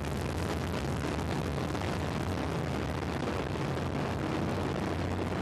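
Delta II 7320 rocket climbing just after liftoff, its RS-27A main engine and three solid rocket boosters burning together: a steady, dense noise, strongest at the low end.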